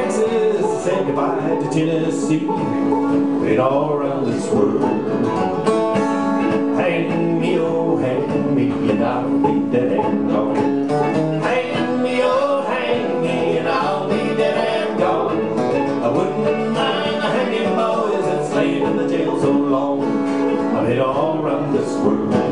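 Live bluegrass instrumental break: acoustic guitar, banjo and mandolin playing together, with a lead melody line bending in pitch over the strummed and picked accompaniment.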